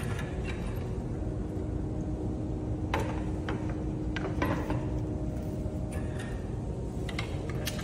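Light clicks and knocks of a white tubular metal frame being handled and fitted together on a wooden table: a cluster about three seconds in and two more near the end, over a steady low hum.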